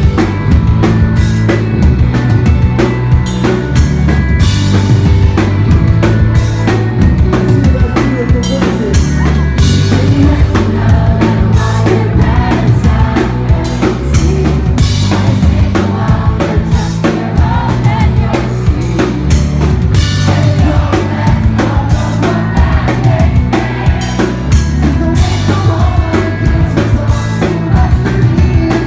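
Live rock band playing a song loudly, driven by a steady drum kit with bass drum and snare hits.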